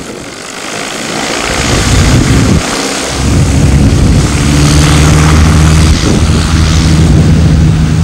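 Small propeller aeroplane's engine and propeller, growing louder over the first couple of seconds, then settling from about three seconds in into a loud, steady drone with a deep hum under a rushing hiss.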